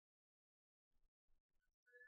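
Near silence, with a few faint soft clicks in the second half.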